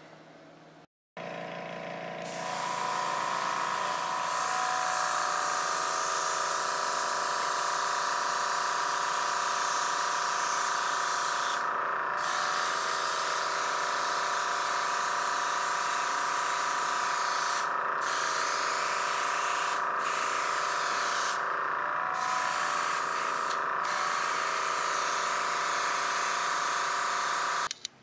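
Gravity-feed airbrush hissing as it sprays paint, over the steady whine of its air compressor. Starts about a second in, and the spray hiss stops for brief moments about five times as the trigger is let off while the compressor keeps running.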